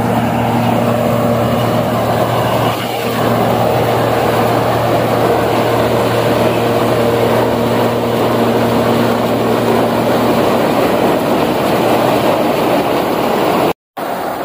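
Dasmesh 9100 combine harvester running under load as it cuts standing maize: a loud, steady engine hum and threshing noise, which cuts out briefly near the end.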